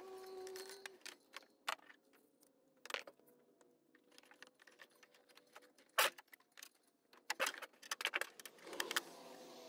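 A new rubber serpentine belt being handled and threaded around the engine's pulleys by hand: scattered light clicks, knocks and rustles, with one sharper knock about six seconds in and a cluster of clicks near the end.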